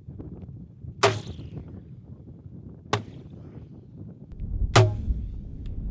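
Three sharp shots about two seconds apart, each with a short ringing tail, the third the loudest, followed by a low rumble.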